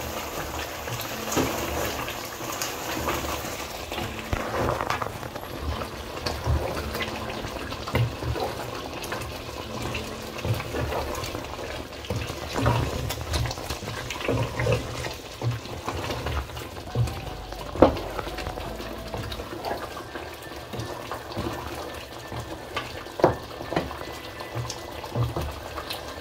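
Gourd and beef curry cooking in a pan: a steady hiss of sizzling, bubbling liquid, with irregular knocks of a spatula against the pan as it is stirred, the sharpest about two-thirds of the way in.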